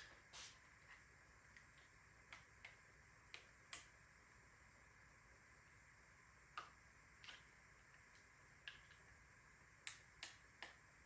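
Faint, irregular light clicks and ticks, about a dozen over several seconds, from small tools and metal parts being handled while a bicycle is taken apart.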